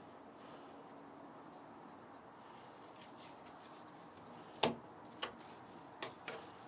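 Faint room tone, then from about four and a half seconds in a few short, sharp taps and knocks, the first the loudest, from a cat playing with a feather toy on a wooden window ledge.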